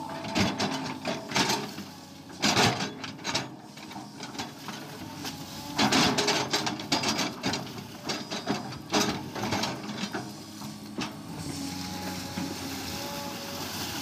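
SANY SY215 excavator digging a trench: its diesel engine runs steadily under irregular clanks and scrapes as the steel bucket cuts into the soil, with the louder knocks in the first half and a steadier stretch near the end.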